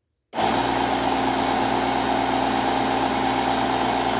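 Air compressor motor running steadily, inflating a bicycle inner tube; it starts abruptly just after the start and cuts off abruptly near the end.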